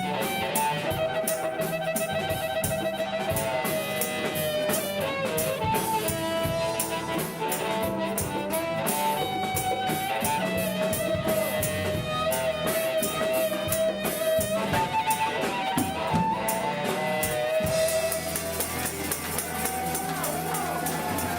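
Live band playing an instrumental passage: strummed guitar keeping a steady rhythm under a lead line of held, slightly bending harmonica notes.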